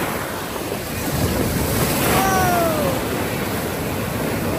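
Sea surf breaking and washing up the beach in a steady rush. About two seconds in, a brief tone glides down in pitch.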